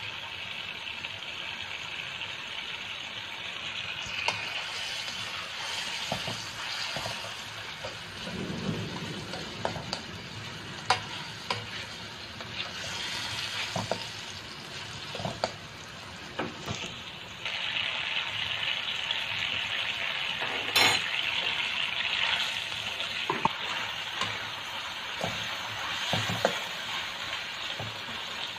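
Sliced bitter gourd, tomato and garlic sizzling in a wok while a spatula stirs and scrapes them, with scattered clicks of the spatula against the pan. The sizzle gets louder a little past halfway, and there is one sharp knock shortly after.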